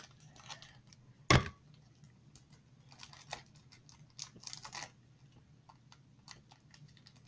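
Toy packaging being cut with scissors and torn open: small snips, clicks and crinkling rustles, with one sharp louder knock about a second and a half in.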